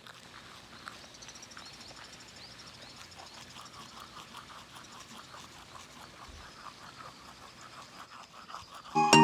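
Faint animal calls, a long run of short repeated chirping notes. Loud music starts right at the end.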